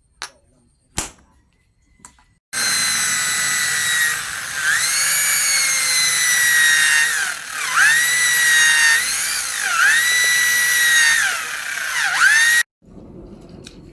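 A few sharp knocks, then an electric power tool's motor runs with a high-pitched whine for about ten seconds. Its pitch dips four times as it bogs under load against the steel and recovers each time, and it cuts off abruptly.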